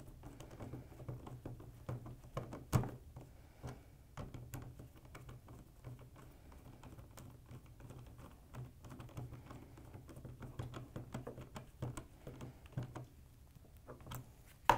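Screwdriver tightening the terminal screws of a plastic-cased DC isolator switch: faint scattered clicks and scrapes of the tool in the screw heads, with a sharper knock near the end.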